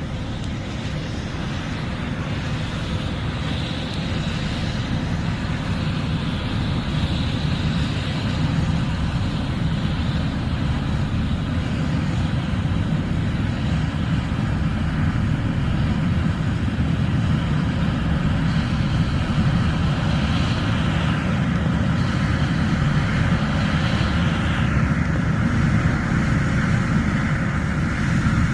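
John Deere S780 combine harvesting corn, running steadily with a low engine rumble and a hiss from the threshing. It grows gradually louder over the first several seconds, then holds.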